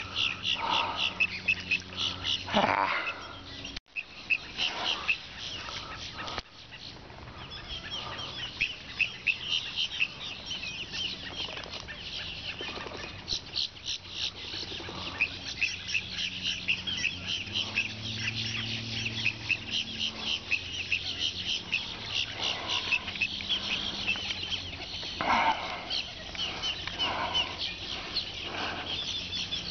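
Birds calling: a steady high chatter of many quick notes, with a few louder, lower calls near the start and again about 25 seconds in.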